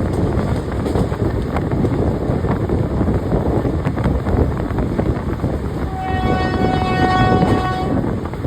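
Express train hauled by a WAP-4 electric locomotive running at speed, a steady rumble throughout. About six seconds in, the locomotive's horn sounds one long steady chord for about two seconds.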